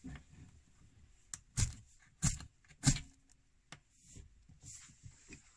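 Striker scraped sharply down a magnesium fire-starter rod, about five short strikes within a couple of seconds, throwing sparks that light a wax fire-starter puck.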